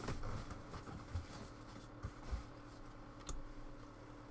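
Basketball trading cards being handled and slid over one another: faint rubbing and scraping with a few light clicks, over a low steady hum.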